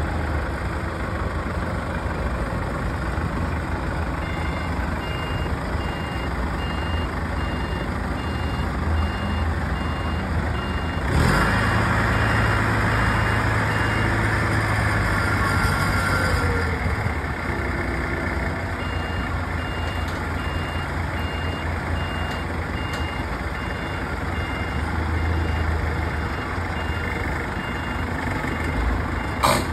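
A heavy vehicle's reversing alarm beeps about one and a half times a second over its running engine. The beeping stops for a few seconds and then starts again. Around the middle the engine revs up for about five seconds.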